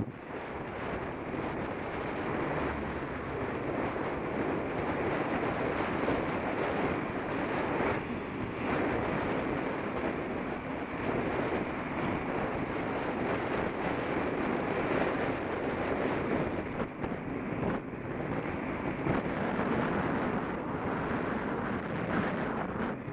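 Steady wind rushing over the microphone of a moving Contour Roam action camera, with brief dips about a third of the way in and again past the middle.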